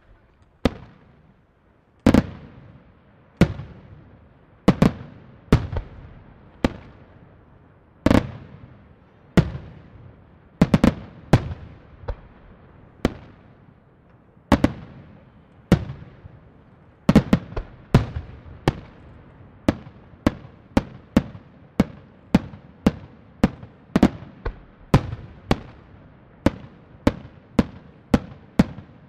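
Aerial firework shells bursting one after another, each a sharp bang that trails off, at first about once a second and then quickening to about two a second in the second half.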